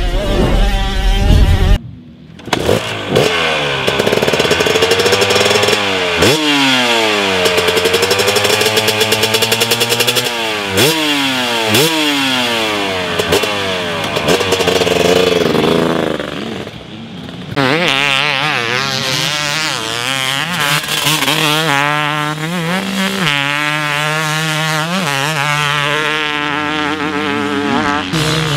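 Husqvarna TC250 250cc two-stroke motocross bike ridden hard on the track, the engine revving up and dropping back again and again as the rider accelerates, shifts and rolls off. Its pitch swoops up and down every second or two, with a brief lull about two-thirds of the way through before it picks up again.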